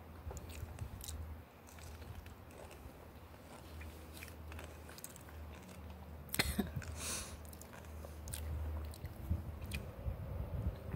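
A person chewing food close to the microphone, with small crunching clicks and one sharper crunch about six seconds in. A low wind rumble buffets the microphone underneath.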